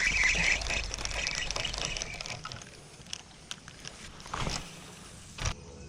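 Water splashing and sloshing around a fishing kayak, loudest in the first two seconds, then fainter with a few light clicks and two sharper knocks near the end.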